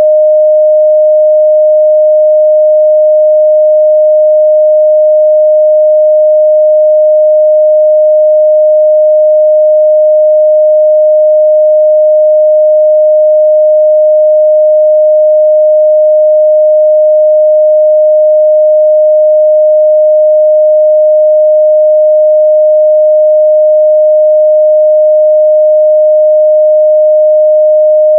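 A steady, loud 614 Hz sine-wave test tone, one unchanging pitch with no other sound.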